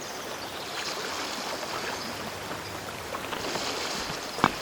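A steady rushing noise, with faint scattered ticks and one sharp click near the end.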